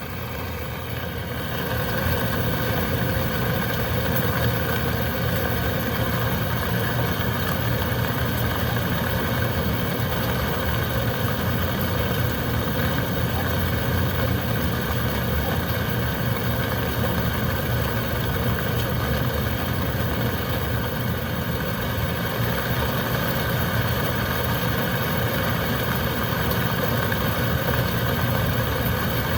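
Heavy rain and wind: a steady rushing with a deep low rumble, fading in over the first two seconds.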